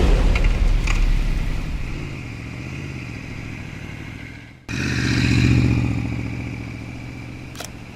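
Aprilia Tuono 1100's V4 engine, heard in two edited clips. The first dies away, then a hard cut about halfway through brings in a second that swells and then fades.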